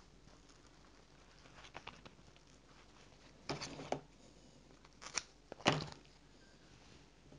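A few short rustles and crinkles from fly-tying material, tan bucktail, being handled and prepared. The loudest comes near the end.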